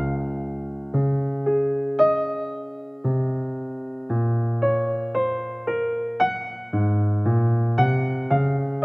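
Background piano music starting suddenly out of silence: slow chords and melody notes, each struck and fading, changing about once or twice a second.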